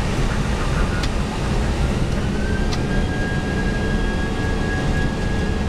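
Airbus A319 jet engines at takeoff thrust and the rumble of the takeoff roll, heard inside the cockpit as a steady, dense roar. A thin steady whine comes in about halfway through and holds.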